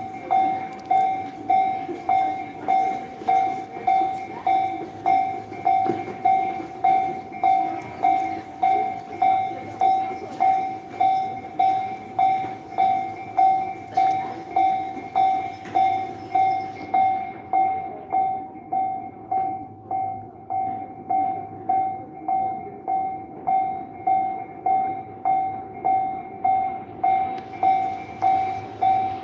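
Japanese level-crossing warning bell ringing its steady, evenly spaced 'kan-kan' strikes, about one and a half a second, over the running noise of a passing train. The train noise drops away a little past halfway and comes back near the end while the bell keeps ringing.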